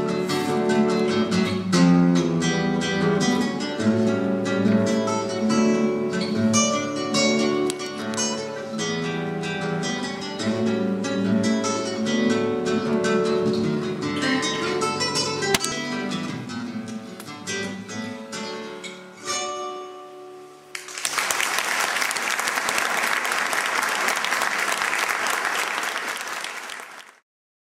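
Solo classical guitar playing a piece of plucked melody and chords, the final notes dying away about 20 seconds in. Then an audience applauds for about six seconds, cutting off suddenly just before the end.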